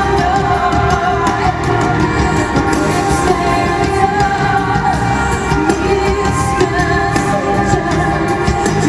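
A woman singing with instrumental accompaniment in a live concert recording, the music continuous and steady.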